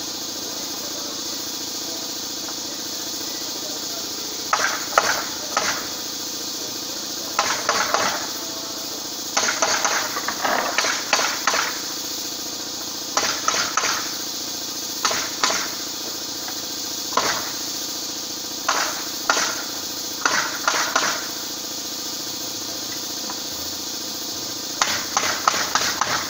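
Nailing into a wooden subfloor deck, most likely a pneumatic framing nailer: clusters of sharp shots, starting about four seconds in and coming back every second or two, over a steady hum.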